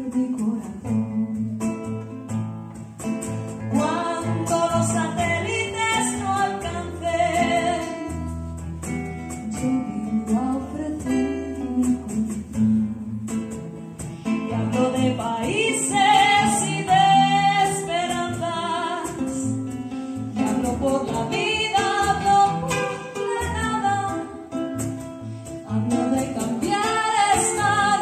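A woman singing a slow song, accompanied by a classical guitar.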